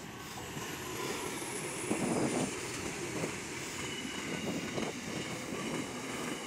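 Diesel locomotives at the head of a grain train passing close by: a steady engine drone with wheel noise on the rails, loudest about two seconds in.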